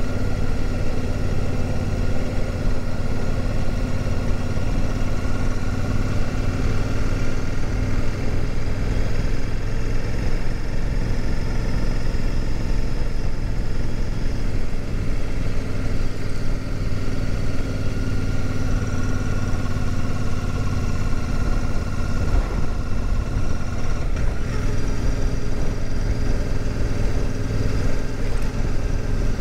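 Royal Enfield Super Meteor 650's parallel-twin engine running at a steady cruise, with wind rumble on the microphone. The engine note shifts slightly a little over 20 seconds in.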